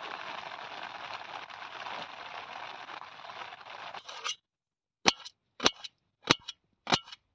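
Steady rain hiss for about four seconds. It breaks off, and four sharp clicks follow, about one every 0.6 s: a kitchen knife slicing through onion and striking a steel plate.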